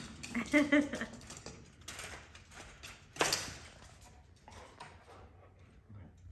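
A short high-pitched voice near the start, then a sharp knock about three seconds in and light clicks and rustles as a Bernese mountain dog gets up and walks on the hard floor.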